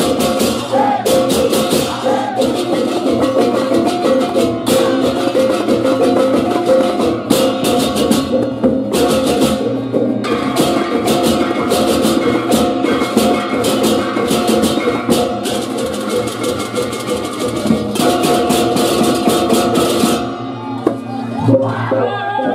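Balinese baleganjur processional gamelan playing: carried kettle gongs (reyong) and clashing hand cymbals (cengceng) in a fast, dense rhythm. The cymbals drop out about twenty seconds in.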